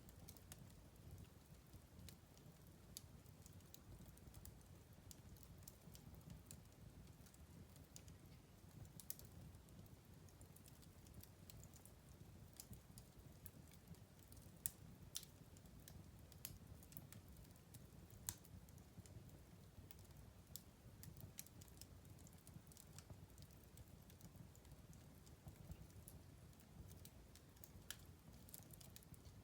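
Fire in a fireplace crackling quietly over a soft low rumble, with irregular sharp pops scattered throughout; a few louder pops come around the middle.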